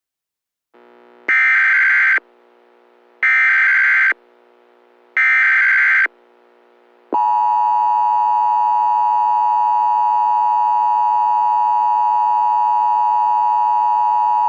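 Emergency Alert System header: three evenly spaced bursts of SAME data tones, each about a second long, over a faint hum. About seven seconds in, the steady EAS two-tone attention signal starts and holds.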